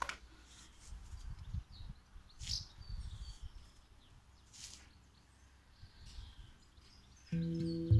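Birds chirping, with low rumbling movement noise in the first few seconds; about seven seconds in, a Baopan A2 handpan is struck and its steel notes ring on.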